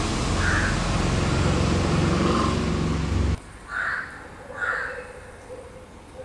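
Short, harsh bird calls, four single calls spread across a few seconds, over a steady low rumble that cuts off suddenly a little past the halfway point.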